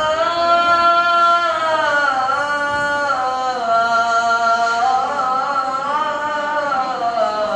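A man's voice chanting the adhan, the Islamic call to prayer: one long drawn-out melismatic phrase that holds a note, slides down, climbs again and falls away near the end.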